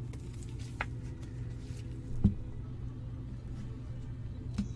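Faint clicks and handling sounds of a trading card and a plastic card sleeve, with one louder tap about two seconds in, over a steady low hum.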